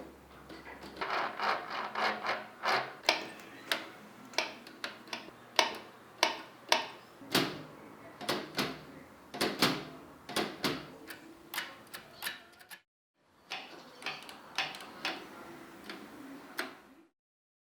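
Metal parts of an old, rusty Facit typewriter clicking and knocking irregularly as it is handled and worked on, some knocks ringing briefly. The sound breaks off for a moment about two-thirds of the way through, then resumes.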